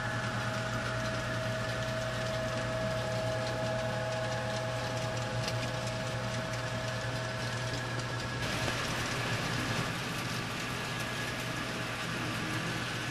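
Model railroad coal train running on the layout track: a steady mechanical hum with held tones from the locomotives and wheels rolling on the rails. The sound changes abruptly about eight seconds in.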